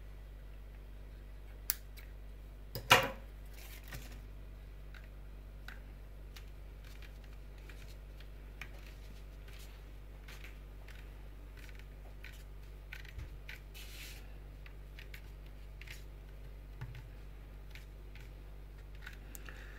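Scissors snipping through a rubber seal strip, with a small click and then one sharp, louder snip about three seconds in. After that come faint handling rustles and light ticks as the strip is pressed into place, over a steady low hum.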